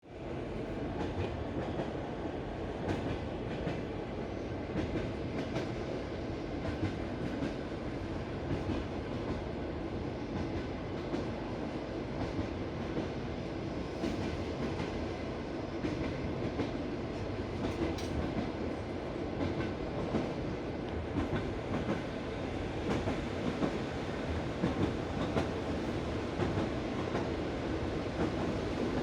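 Moving train heard from inside the carriage: a steady rumble of the running gear with the clickety-clack of the wheels striking the rail joints of jointed track, a knock every second or two.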